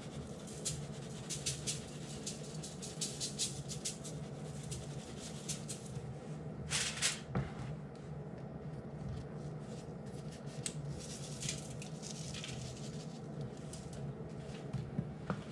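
Spice shakers being shaken over diced vegetables on aluminium foil: runs of quick rattling shakes, with a longer burst about seven seconds in, over a steady low hum.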